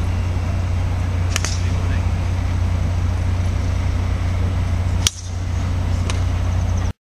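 A golf driver striking a teed ball: one sharp crack about five seconds in. Two fainter clicks come before and after, over a steady low rumble.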